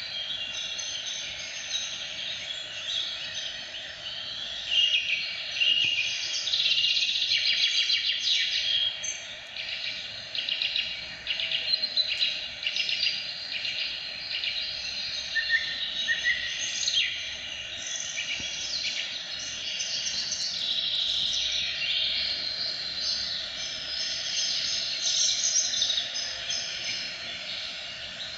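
Many birds chirping at once, a dense, unbroken chorus of quick high chirps and trills.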